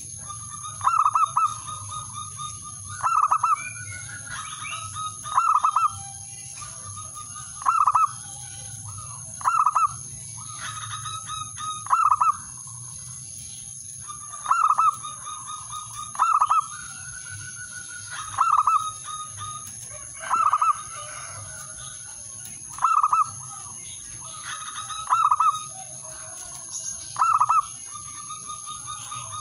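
Male zebra dove cooing its song, the call used to challenge rivals: a rolling run of soft coos ending in a louder note, repeated about every two seconds.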